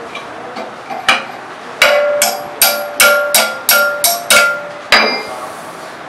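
Hammer blows on an old refrigerator compressor's steel housing clamped in a vise, each strike ringing like struck metal. A couple of single blows are followed, from about two seconds in, by a steady run of about eight blows, two to three a second, which stops shortly before the end.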